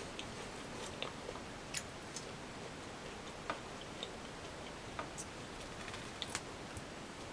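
Plastic knife and fork cutting food in a polystyrene takeaway tray, making light, irregular clicks and scrapes, about one or two a second, over a faint steady hiss.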